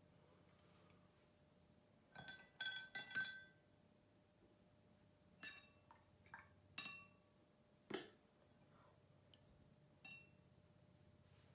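Paintbrush clinking against a glass water jar during watercolour painting: a quick run of clinks about two seconds in, then single clinks scattered through the rest, each with a short ringing tone.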